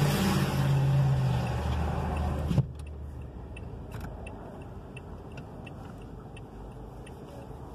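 Heavy vehicle engine idling close by, heard from inside a stopped car, with traffic noise; it cuts off suddenly after about two and a half seconds, leaving quiet car-cabin hum with faint, evenly spaced ticking.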